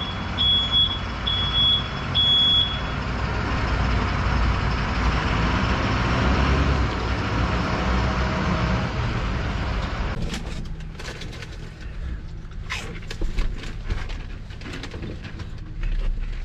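Steady low rumble of a vehicle engine running, with a run of high beeps, about two a second, that stop a few seconds in. About ten seconds in this gives way to crinkling and crackling of a food bag being handled.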